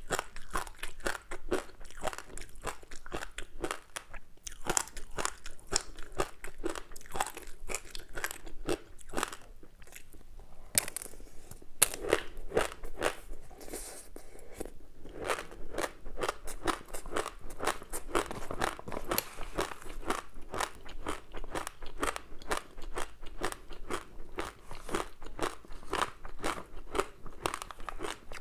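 Close-up chewing of a crispy seaweed-wrapped rice snack: a steady stream of rapid crackling crunches as the dry seaweed shatters between the teeth, with a couple of sharper, louder crunches just before the middle.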